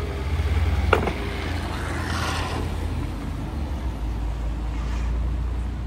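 A motor vehicle running with a steady low rumble, with a single sharp click about a second in.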